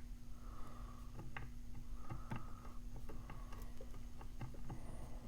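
Lock pick and tensioner working in the keyway of a Brady Safekey padlock: faint, irregular metallic clicks and brief light scraping as the pins are probed for binding.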